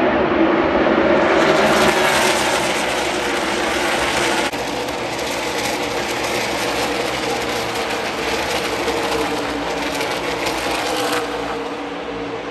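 NASCAR stock cars' V8 engines running at racing speed as a pack laps the oval, heard from high in the grandstand. The sound drops abruptly about four and a half seconds in and eases again near the end.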